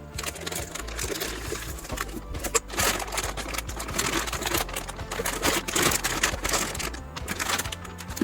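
Handling noise from unpacking: crinkling packaging and rapid irregular clicks and rattles, over quiet background music.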